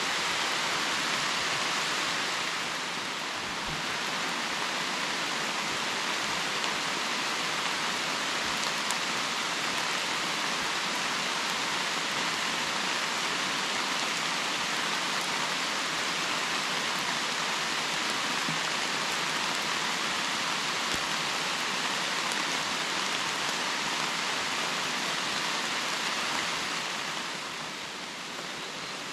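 Steady rain falling on the leaves of a forest, an even hiss with no breaks. It softens slightly for a moment about three seconds in, and again near the end.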